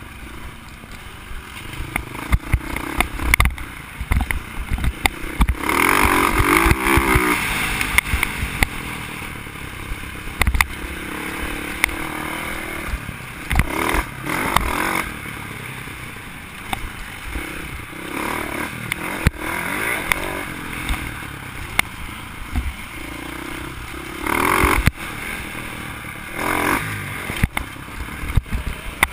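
Dirt bike engine ridden on a rough trail, revving up and easing off again and again, with a strong run of throttle about six seconds in and another near the end. Knocks and rattles from the bike bouncing over bumps are heard through a helmet-mounted camera.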